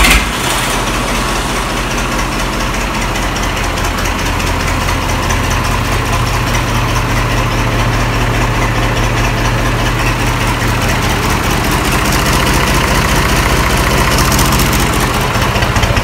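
Swaraj 735 FE tractor's three-cylinder diesel engine catching right at the start, then idling steadily at low revs.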